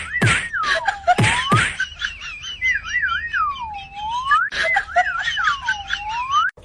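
A whistled tune: a quick wobbling trill that swoops down and back up again, repeated several times, with sharp pops in between.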